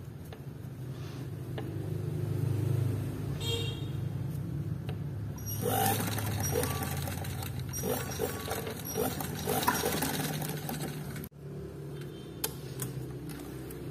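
Sewing machine running steadily, stitching a fabric strip, with a low hum. From about halfway, cloth rustling and small clicks of the fabric being handled and fed join in. The sound breaks off for a moment near the end.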